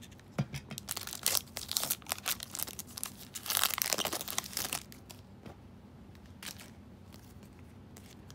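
Foil wrapper of an NBA Hoops trading-card pack crinkling and tearing as it is opened, loudest about three and a half seconds in. After about five seconds it goes quieter, with one last crackle.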